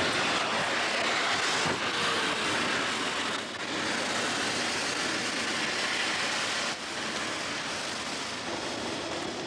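Steady, loud rush of jet aircraft engine noise, dropping a little about two thirds of the way through.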